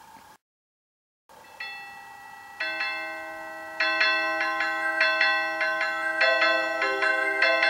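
Bell-like electronic chime melody from a Small World Seeker melody clock, starting after a brief silence. Ringing notes come in one by one from about a second and a half in and build into a chiming tune.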